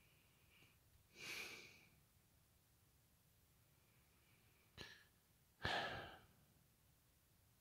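A person hiccupping, faint and breathy: three short hiccups, about a second in, near five seconds in, and a louder one with a sudden start just after.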